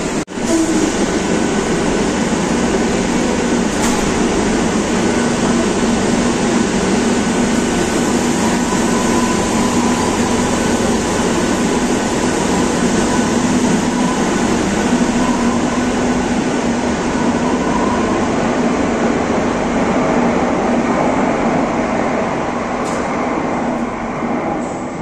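Madrid Metro train pulling out of an underground station: a steady rumble of wheels and motors with a faint steady whine. The rumble fades near the end as the train enters the tunnel.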